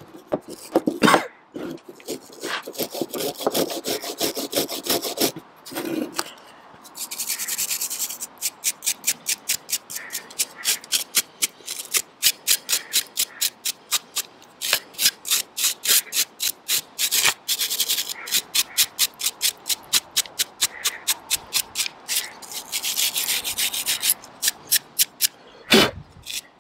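Wire brush scrubbing flaky rust off the metal parts of a seized wiper motor, in quick back-and-forth strokes at about four a second, with short pauses.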